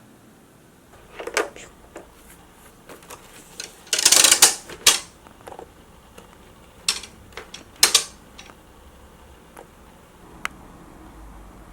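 Scattered plastic clicks and knocks from a Doshisha folding fan being handled and adjusted. The loudest is a short clatter about four seconds in, with two sharp clicks around seven and eight seconds.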